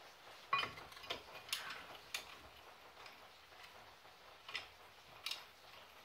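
Sharp metallic clicks and taps from hand tools and brake hardware being worked at a car's wheel: a handful of irregularly spaced clicks, the loudest about half a second in.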